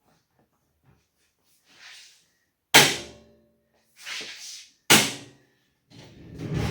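Metal tool box drawer rolling on its ball-bearing slides and banging shut, twice, with a short sliding rush before each sharp bang.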